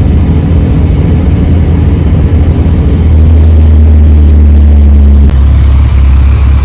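A car engine running with a steady low drone. It grows louder and steadier about three seconds in.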